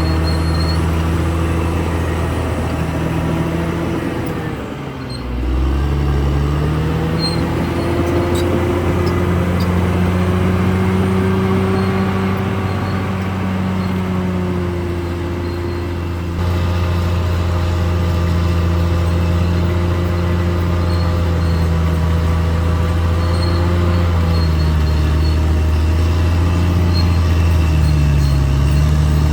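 Caterpillar D6R XL bulldozer's diesel engine running steadily under load, its pitch sagging and recovering about five seconds in, with smaller dips near the end.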